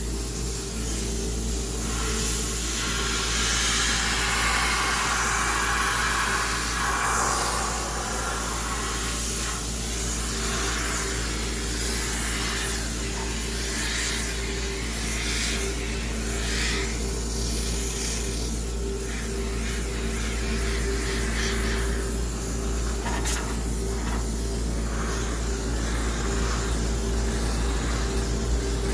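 High-pressure steam sterilizer spraying steam into a front-loading washing machine drum: hissing steam that swells and fades over a steady machine hum.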